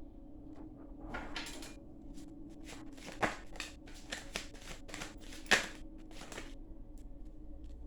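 Tarot cards being shuffled and handled: a run of quick papery flicks, with two sharper snaps about three and five and a half seconds in.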